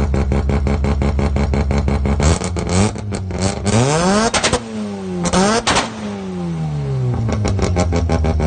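Mazda rotary engine idling with a fast, even pulsing, then revved twice: each time the pitch climbs and falls back, with sharp cracks near the top. It settles back to idle near the end.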